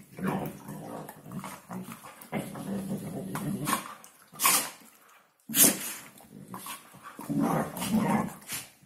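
Two Hungarian vizslas play-fighting, growling in low rumbling stretches, with two short sharp barks about halfway through that are the loudest sounds.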